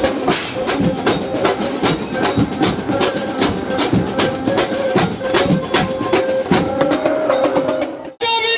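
Procession drums beating a fast, steady rhythm of sharp strikes, with a held tone partway through. The drumming breaks off abruptly near the end.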